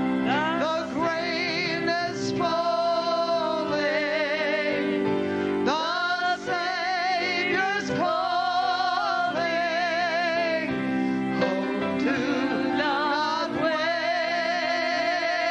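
Slow gospel worship singing: a singer holds long notes with wide vibrato over steady held instrumental chords.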